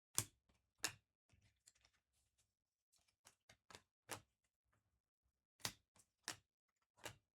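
Quiet, irregular taps and clicks, about a dozen, the two loudest in the first second: trading cards and packs being handled on a table during a box break.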